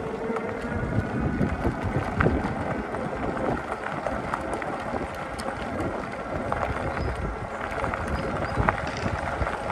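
Wide fat-bike tyres of a GZR Pedelec Fat-E electric bike rolling over a gravel road, a steady rumble scattered with small clicks of grit, with wind buffeting the handlebar-mounted microphone.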